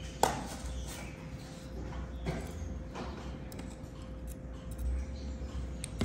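Metal tweezers and small glass pieces clicking against a glass piece: one sharp click about a quarter second in, then a few fainter taps, over a low steady hum.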